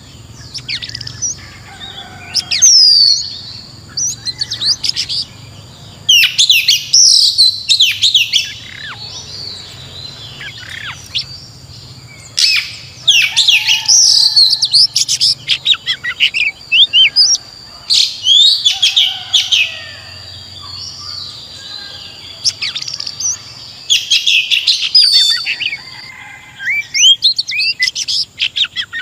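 Female oriental magpie-robin calling in repeated bursts of quick, high chirps and whistled notes, a new burst every second or two: the female's call used to stir a male into singing.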